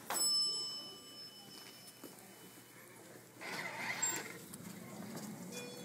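A bell-like chime sounds once at the start and rings out over about two seconds. A little past three seconds in, a wall-mounted hand-sanitiser dispenser gives a short noisy burst as it dispenses onto a hand.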